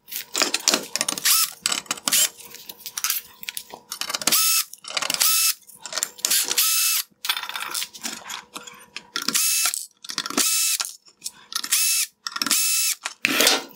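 Ryobi cordless drill/driver running in a series of short bursts of motor whine, about half a second each, backing out T15 Torx screws from a plastic headlight housing. Clicks and rattles of the tool and parts come before and between the bursts.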